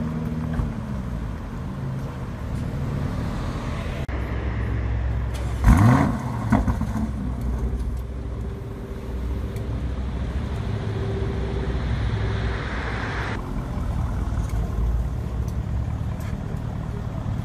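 Lamborghini Urus twin-turbo V8 idling with a low rumble, blipped once into a short, sharp rev about six seconds in.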